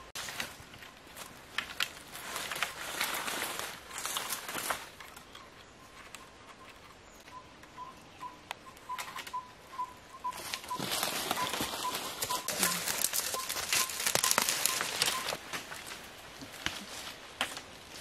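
Dry leaves, stalks and wooden poles rustling and crackling as they are handled, with scattered snaps and light knocks, in two longer spells of activity.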